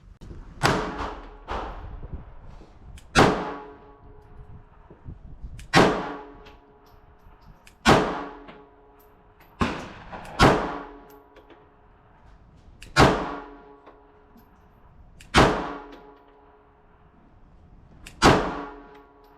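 S&W Bodyguard 2.0 .380 ACP pistol firing a magazine of about ten shots at an uneven, unhurried pace, one to three seconds apart. Each sharp crack is followed by a short ringing echo.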